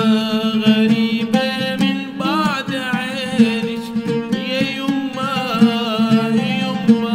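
A man singing a drawn-out, wavering melody, accompanied by an oud being plucked.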